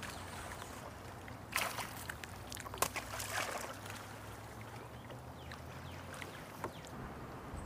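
A hooked bass splashing at the surface beside the boat, in two bursts about a second apart, over a steady low hum that stops near the end.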